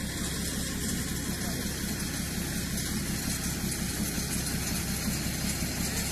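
An engine idling steadily, a continuous low running hum with no change in speed.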